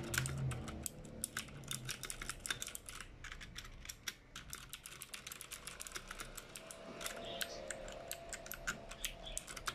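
Keys of a GamePower Warlock compact mechanical keyboard with clicky blue switches being typed on: a rapid, uneven stream of sharp key clicks.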